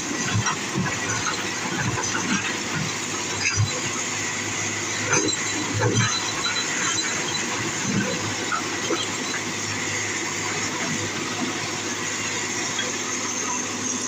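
Komatsu PC200 hydraulic excavator at work: its diesel engine running steadily under high metallic squeals, with several knocks from the bucket and arm working through material.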